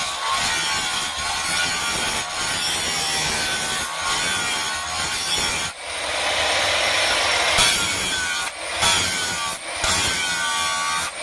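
A 7-inch Makita angle grinder grinding the edge of a sickle blade: a harsh grinding hiss with a whine that wavers in pitch as the pressure changes. There are short drops about halfway through and again near the end, as the blade is shifted against the disc.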